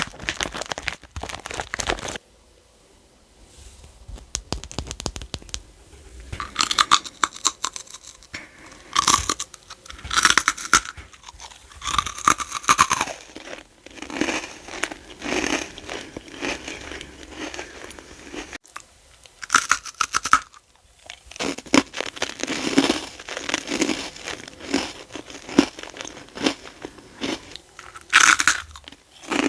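Close-miked crunching and chewing of freeze-dried candy. Brittle, crackly bites come in bursts, with a short quiet pause about two seconds in.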